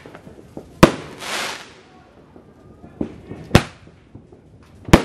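Roman candle firing: three sharp bangs, about a second in, a little past three and a half seconds, and near the end, with smaller pops between them. A short hiss follows the first bang.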